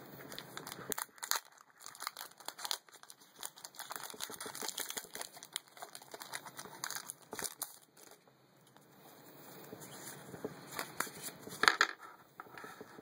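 Pokémon TCG booster pack's foil wrapper crinkling and tearing as it is opened by hand, in many short crackles, with a louder crackle near the end.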